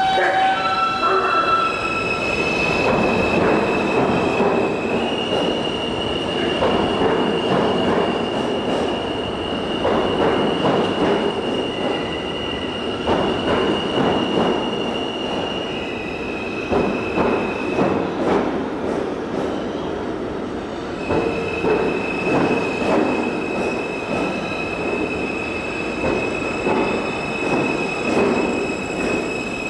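R160 subway train pulling out of an underground station: wheels rumbling and clattering along the track, with a high steady squeal over it that shifts pitch a few times.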